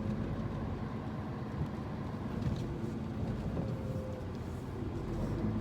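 Scania tractor unit's diesel engine running steadily at low speed as the truck creeps along to park.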